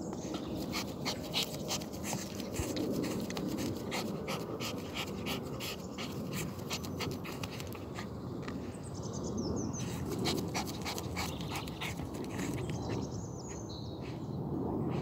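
A West Highland White Terrier panting and snuffling hard with its nose down a hole as it digs after a mole, over a rapid run of scratching as its paws rake the soil.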